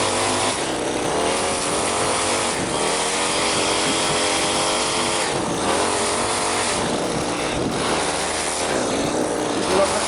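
Small petrol engine of lawn equipment running, its pitch rising and falling gradually.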